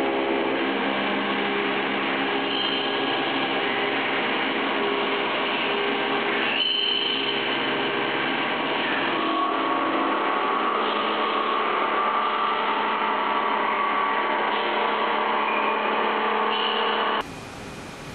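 Heavy CNC milling machine cutting steel: a steady, dense machining whine with several held tones, whose pitch pattern shifts twice. Near the end it cuts to a quieter, steady hiss.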